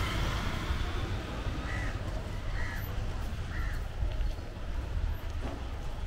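A crow cawing three times, about a second apart, over a steady low rumble of street noise.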